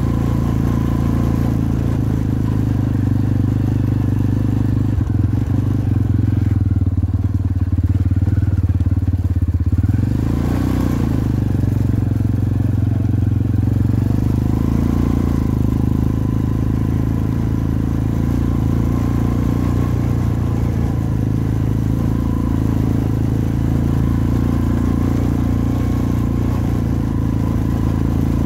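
250cc Jinling ATV engine running steadily while the quad is ridden along a dirt track.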